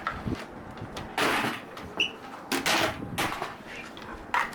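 Aluminium cans being crushed: a series of loud, sharp metallic crunches, about five in a few seconds.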